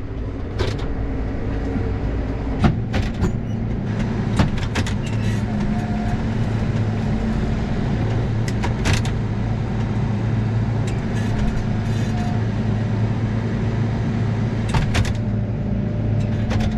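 Case IH loader tractor's engine running steadily, heard from inside the cab, as the tractor drives over a dirt farm lane. Scattered clicks and clunks from the cab and loader sound over the drone.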